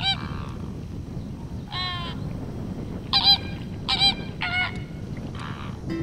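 Greater flamingos calling: about six short, goose-like honks, one every second or so, over a steady low background noise.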